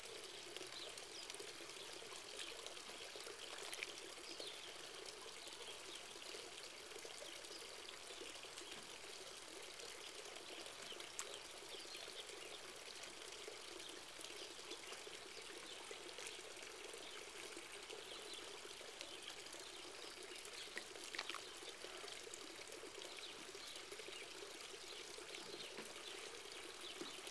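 Faint, steady lapping and trickling of swimming-pool water, the pool sloshing as set in motion by a distant earthquake.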